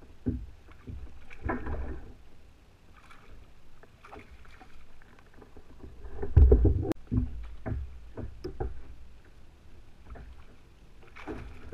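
Knocks and bumps against a fishing kayak and water splashing as a hooked fish is fought and netted, with the heaviest thump and splash about six seconds in.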